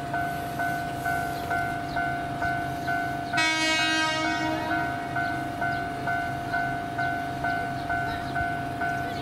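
Railway level-crossing warning bell ringing steadily, about two dings a second. About three and a half seconds in, a diesel railcar's horn sounds once for about a second and a half, the loudest sound.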